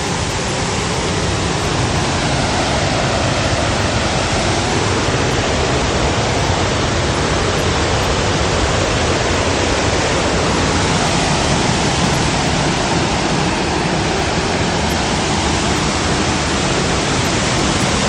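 Loud, steady rushing of a waterfall, an unbroken wash of water noise with no change in level.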